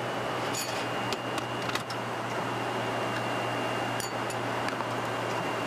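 Steady rush of a Boeing 747-8's cabin noise in flight, with a constant low hum under it, and a few light clinks of utensils and dishes as food is plated in the galley.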